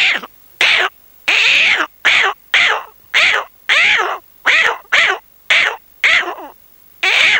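A man's mouth imitation of an owl: a run of short calls, each falling in pitch, repeated about twice a second with a short break near the end.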